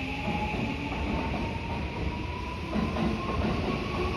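Electric train sounds at a station platform: a thin whine that slowly rises in pitch over a low rumble.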